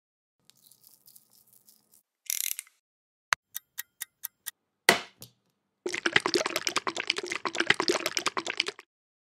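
A quick run of small clicks and one sharper click, then cooking oil poured from a bottle's pour spout into a frying pan, a pattering stream lasting about three seconds.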